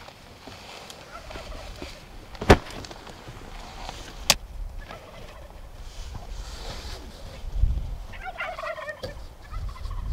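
Merriam's wild turkey gobbling: a rapid rattling call falling in pitch, near the end. Earlier, two sharp clicks about two seconds apart are the loudest sounds.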